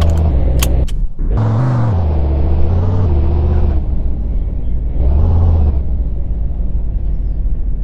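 Subaru Impreza engine sound as reproduced in an RC model, idling with two short revs, about a second and a half in and again about five seconds in. A few sharp clicks come just before the first rev.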